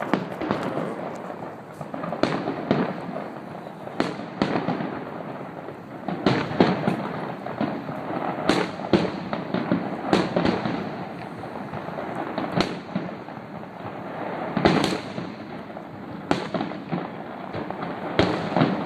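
Aerial fireworks bursting: a rapid, irregular series of sharp bangs over a constant crackle.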